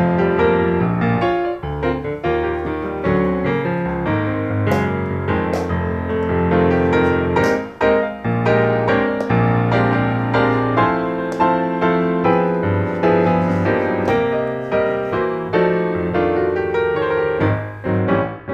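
Background piano music, a steady stream of notes throughout.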